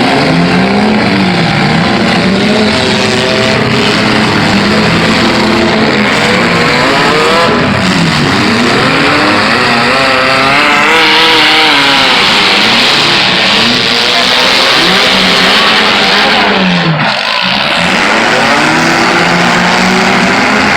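Several demolition derby cars' engines revving hard at once, their pitches rising and falling over each other as the cars accelerate and back off, loud throughout.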